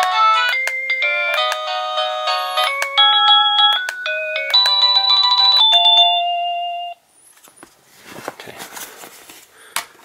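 AVANTEK DB-12W wireless doorbell's portable receiver playing a series of short synthesized chime tunes through its small speaker as its chime-select button is pressed. The tunes cut off suddenly about seven seconds in, followed by plastic handling clicks and rustling.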